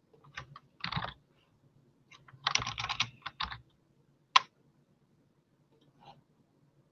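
Typing on a computer keyboard in short bursts of keystrokes, a brief burst about a second in and a longer run from about two and a half to three and a half seconds in, then a single sharp click a little after four seconds.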